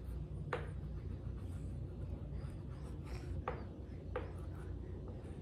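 Sidewalk chalk scratching across concrete patio pavers as a small child draws, with three sharp clicks spread through it, over a low steady rumble.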